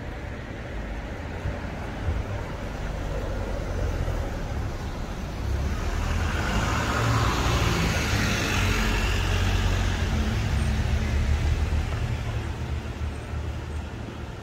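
A car passing by in the street: its engine and tyre noise swell to a peak around the middle and fade away again, over a steady low traffic rumble.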